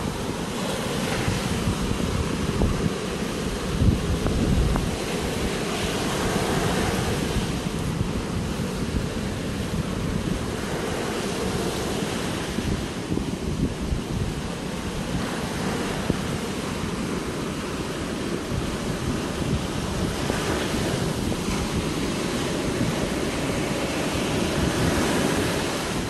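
Sea surf breaking and washing up a sandy beach: a steady rush that swells every few seconds as waves come in, with wind rumbling on the microphone.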